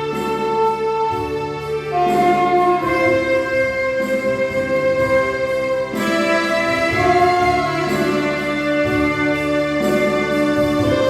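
Saxophone playing a slow melody of long held notes over an instrumental backing track with sustained bass and chords.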